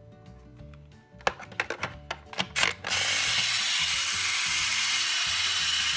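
Plastic clicking as a toy tart is dropped into a Hello Kitty toy toaster and its lever is pushed down. About three seconds in, the toaster's electronic toasting sound effect starts: a loud, steady hiss that runs on.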